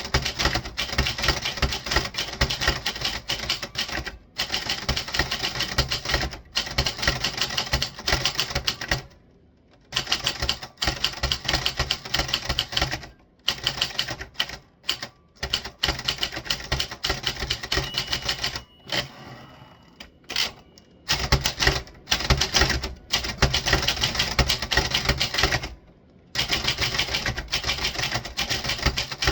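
Typewriter being typed on fast, a dense stream of key strikes broken by a few short pauses, the longest around nine seconds in and again around nineteen to twenty-one seconds in.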